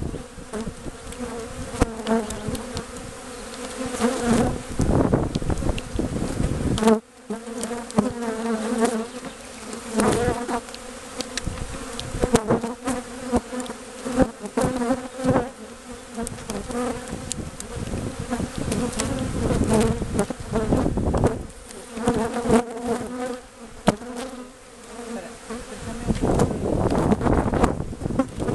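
A dense swarm of honeybees buzzing around an opened hive, a steady droning hum with bees passing close by. A few sharp knocks come through the hum.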